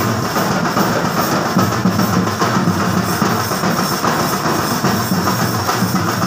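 A festival drum troupe beating large cylindrical drums, of the chenda kind used at Kerala festivals, in a loud, dense, driving rhythm that goes on without a break.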